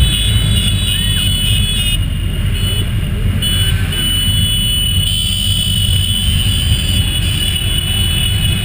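Several motorcycles riding together in a slow-moving pack, engines running with a loud, steady low rumble.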